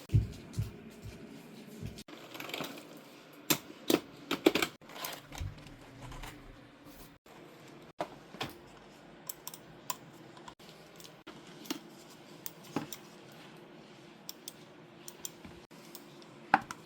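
Scattered clicks and taps of a gaming keyboard being handled and its keys pressed at an irregular pace, with a few louder knocks near the start and near the end.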